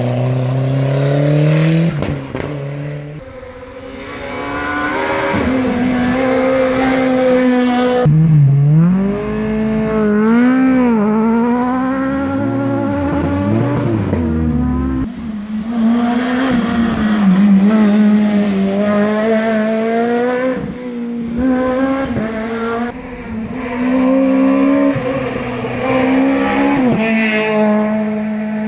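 Rally car engines revving hard and accelerating, the pitch climbing and dropping again and again with gear changes. The sound changes abruptly a couple of times as the footage cuts from one car to another.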